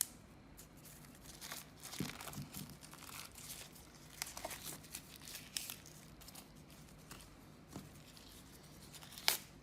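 Packaging being opened by hand: irregular crinkling and tearing rustles, with a sharp click near the end.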